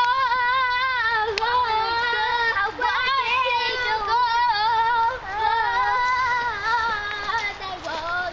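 Young girls singing a song, long held notes wavering in pitch with hardly a break.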